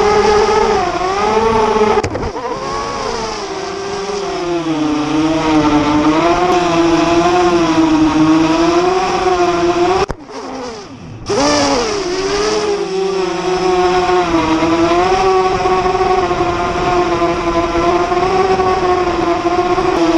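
ZMR250 FPV quadcopter's brushless motors whining in flight, the pitch wavering up and down with the throttle. About ten seconds in the whine drops away for about a second, then swoops back up as the motors spin up again.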